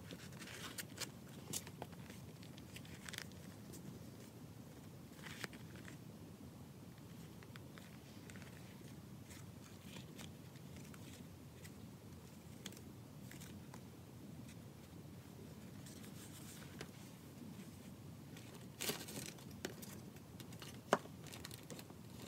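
Faint rustling and soft clicks of paper journal pages being turned and a leather notebook cover being handled, with a short burst of louder rustling and then a single sharp click near the end.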